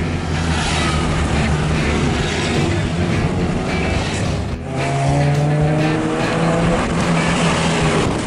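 Engine noise heard from inside a moving car overtaking climbing tractor-trailers: a steady drone, a brief dip about halfway through, then the engine pitch rising as the car accelerates past the trucks.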